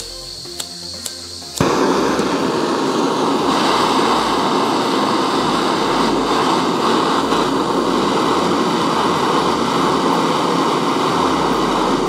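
A few light clicks of a lighter, then a gas-cartridge blowtorch catches about a second and a half in and burns with a loud, steady hiss.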